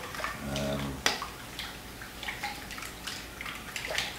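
Water and vegetable oil sloshing in a stainless steel mixing bowl as a spoon stirs them, with scattered clicks of the spoon against the bowl and one sharp knock about a second in.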